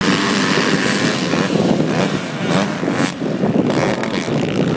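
Motocross bikes' engines running, mixed with wind buffeting the microphone.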